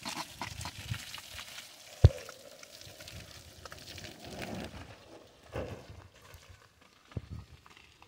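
Water from a garden hose spraying onto a car's body and wheels and splashing onto gravel, a steady hiss with small patters that eases off about five seconds in. A single sharp thump about two seconds in is the loudest sound.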